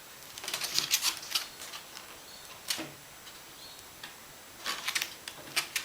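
Handling noises from positioning foam riser pieces on the layout: irregular bunches of light clicks, taps and rubbing, with short quiet gaps between.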